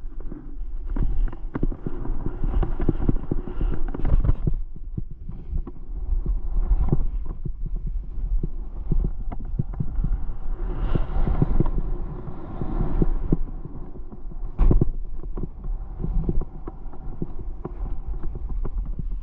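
Sliding downhill over bumpy, tracked-out snow: edges scraping and chattering with irregular thumps as the snow is hit, under a steady rumble of wind on the microphone. One sharper thump about three-quarters of the way through is the loudest.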